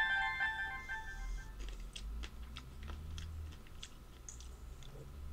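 A chime's ringing tones fade out over the first second or so. After that, a person chewing blueberries and blackberries with the mouth closed gives soft, irregular clicks.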